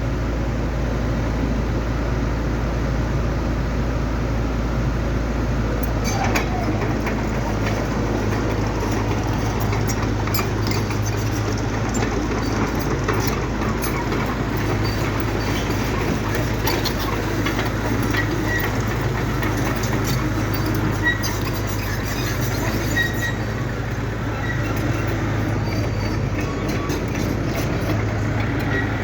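Excavator's diesel engine running steadily, with scattered clicks and knocks from about six seconds in.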